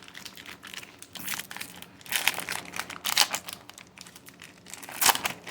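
Foil trading-card pack wrapper crinkling in a string of short, irregular rustles as it is handled and opened.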